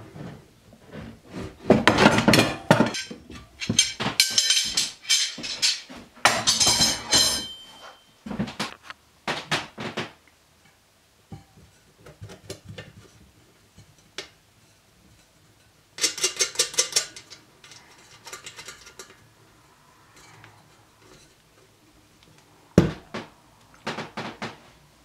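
Steel tyre levers clinking and scraping against the moped's spoked steel rim as a new tyre is levered onto the wheel, in several bursts of clatter with quieter stretches between.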